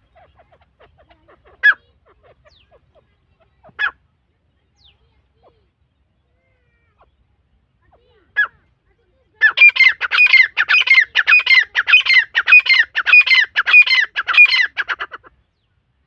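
Grey francolins (teetar) calling: faint chirps, then three short single calls a couple of seconds apart, then from about nine seconds in a loud run of quickly repeated calls lasting some six seconds.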